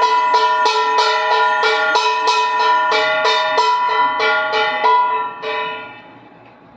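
Instrumental music of quick, evenly spaced ringing notes, about three a second, that stops about five and a half seconds in.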